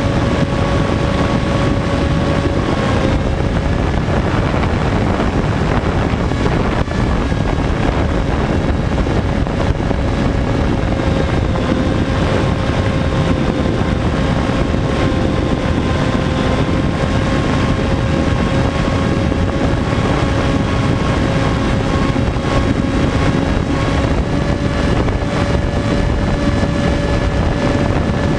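Sky Surfer RC plane's electric motor and propeller running in flight, a steady whine that dips slightly in pitch about three seconds in and rises a little near the end, over wind rushing past the microphone.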